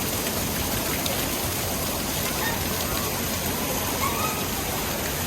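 Waterfall's rushing water: a steady, even noise.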